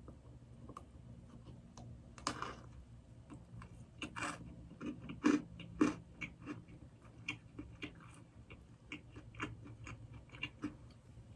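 Close-up chewing of a soft glazed doughnut, with a run of small wet mouth clicks and smacks. A few louder bites and smacks come around the middle.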